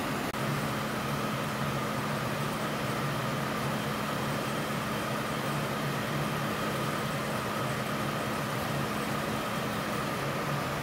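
Rows of polypropylene tape winding machines running, a steady mechanical hum with a few constant tones over an even hiss.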